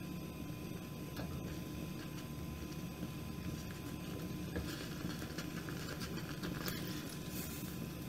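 Wooden spoon stirring thick shiro stew in a clay pot, with soft scraping and wet stirring sounds, a little busier a few seconds in, over a steady low hum.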